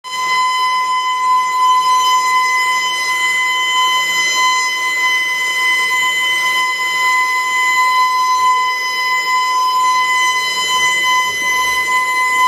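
Building evacuation alarm sounding one continuous, steady tone that holds the same pitch throughout without rising or falling.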